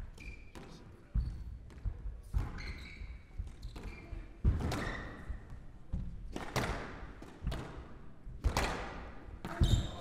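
Squash rally: sharp cracks of racket strikes and the ball hitting the walls, roughly one a second, with short squeaks from the players' shoes on the wooden court floor.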